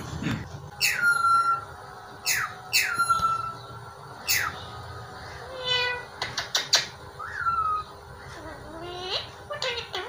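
Indian ringneck parakeet calling: a run of sharp squawks that sweep down in pitch in the first half, then a buzzy call, a few quick clicks and a rising whistle-like call later on.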